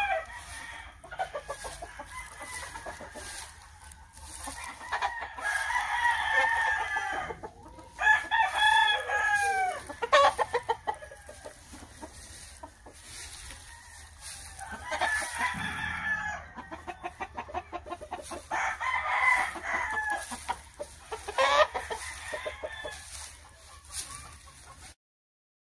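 Gamecocks crowing several times, one after another. Each crow is long and drawn out, and some tail off downward at the end.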